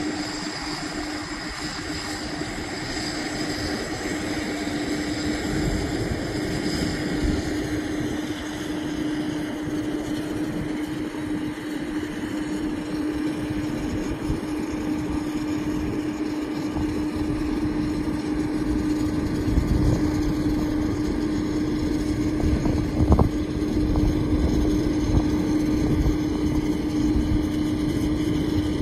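Airbus A380's four jet engines on approach, a distant rumble that grows slowly louder, over a steady hum and wind buffeting the microphone. One short knock comes late on.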